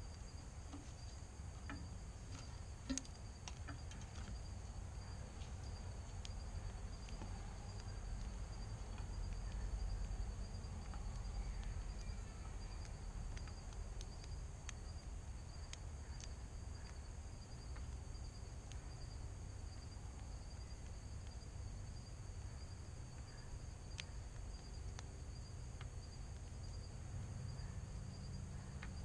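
Steady, high insect chorus of dusk crickets, with a low rumble underneath and a few scattered sharp clicks.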